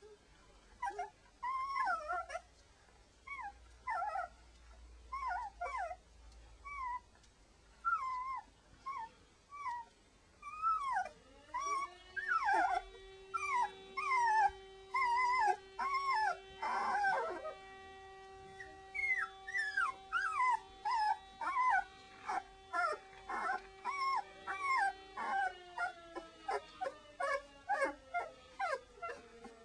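Young Saluki puppies squeaking and whimpering again and again in short high calls while nursing. From about a third of the way in, a long held tone runs under them, gliding up as it begins and down near the end.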